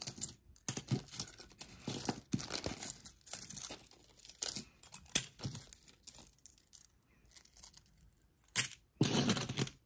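Plastic bag crinkling while small metal earrings jangle as a bagful of jewelry is handled and sorted by hand; irregular rustles, a lull, a sharp click, then a louder rustle near the end.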